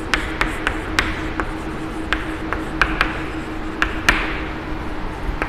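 Chalk writing on a chalkboard: a dozen or so sharp, irregular taps of the chalk striking the board, with light scratching between them. A faint steady hum runs underneath.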